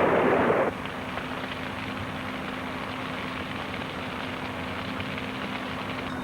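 Heavy machinery running. A loud rushing noise cuts off abruptly under a second in, leaving a quieter steady machine hum with a constant low pitch.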